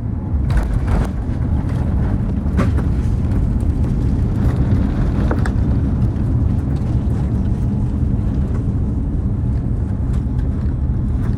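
Loud, steady low rumble inside the cabin of a Boeing 787-9 during its landing, with several sharp knocks in the first six seconds.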